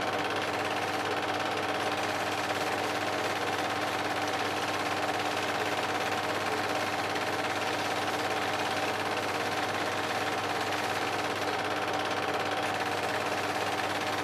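Film projector running steadily: a continuous mechanical whirr with a steady hum.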